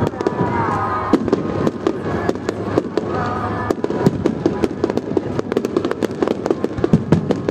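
A fireworks display: dense, rapid crackling and popping, many small bangs a second, with a few louder bangs among them.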